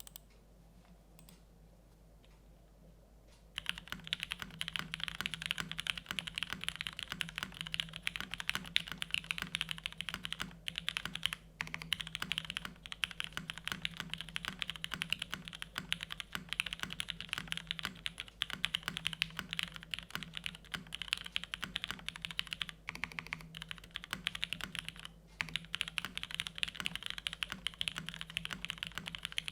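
Continuous fast typing on a TGR Jane v2 CE top-mount mechanical keyboard with lubed Cherry MX2A Orange switches, a carbon fibre plate and GMK keycaps. It starts about three and a half seconds in, with a few brief pauses.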